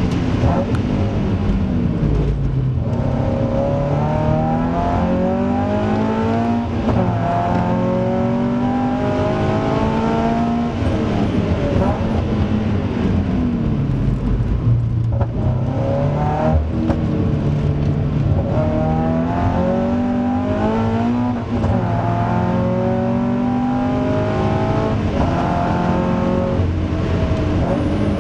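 Toyota GT86's FA20 2.0-litre flat-four engine heard from inside the cabin under hard track driving, revving up through the gears again and again, each climb in pitch broken by a gear change or easing off for a corner.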